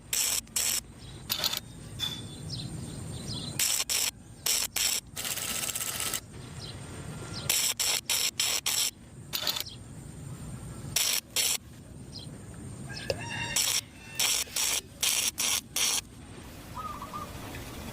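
Electric arc welding crackling in short, repeated bursts that start and stop every second or so, over a steady low hum.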